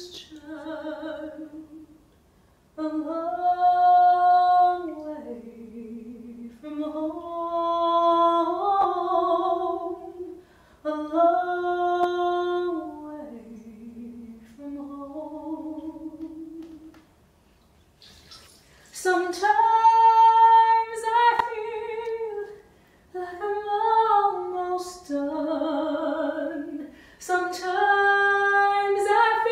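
A woman singing alone, holding long notes with vibrato, one phrase after another with short pauses between. About two-thirds of the way through the line climbs higher and grows louder.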